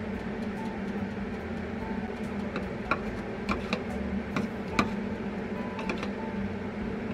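Metal spoon stirring sauce in a small plastic bowl, with scattered light clicks as it taps against the bowl, the sharpest about three and five seconds in, over a steady low hum.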